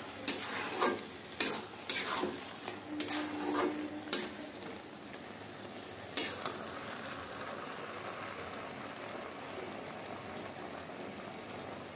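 Grated carrot halwa sizzling in a steel kadhai while a spoon stirs and scrapes it against the pan: several scraping strokes in the first four seconds and one more about six seconds in, then steady sizzling.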